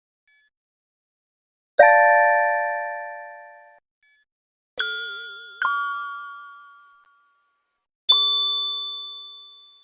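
Four bell-like magic chime sound effects, each struck suddenly and ringing out, fading over about two seconds. The second and third come close together.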